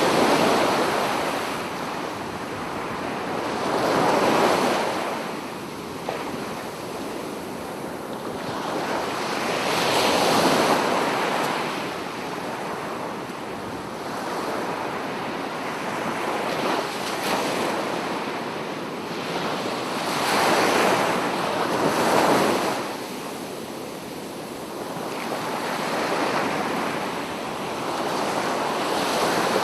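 Sea waves breaking on a beach: a steady rush of surf that swells into a louder crash every several seconds, then drains away.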